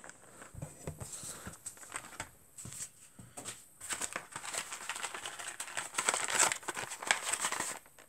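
Plastic blister packaging and card crinkling and rustling as they are handled, in irregular crackles that get busier about halfway through.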